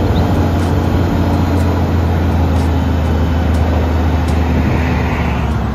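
Diesel engine of an eight-wheel tipper truck running steadily with a low drone while the hydraulic ram raises the tipper body.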